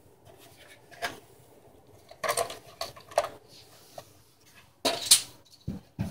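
A scatter of light clicks and clinks from small hard parts being handled, irregularly spaced, the loudest about five seconds in.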